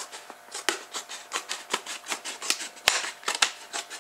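Sharp-pointed scissors cutting along the seam line of a plastic drinks bottle: a run of crisp snips and crackles of the plastic, a few a second, the loudest about three seconds in.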